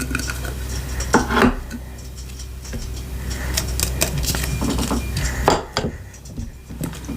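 Slime being mixed in a bowl, with clinks, taps and scrapes of a utensil against the bowl at irregular moments.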